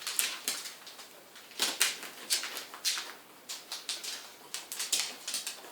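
Puppies eating: a run of short, irregular crunching and smacking sounds, a few each second.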